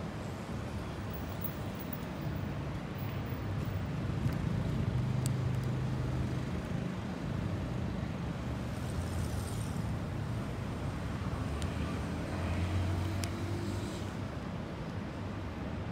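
Steady low hum of road traffic, with a motor vehicle's engine growing louder about a third of the way in and again near the end. A few faint sharp clicks sound over it.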